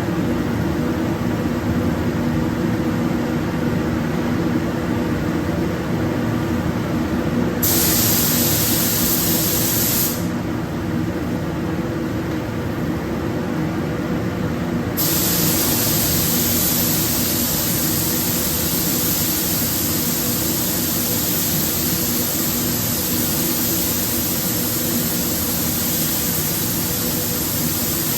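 Compressed-air spray gun hissing as paint is sprayed onto a car body: one short pass of about two and a half seconds, then a long continuous spray from about halfway through. A steady low machine hum runs underneath.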